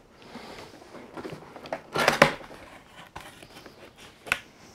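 Hands working a large cardboard box: cardboard scraping and rustling as the end flap of the box is worked open, loudest about two seconds in, with a sharp click a little after four seconds.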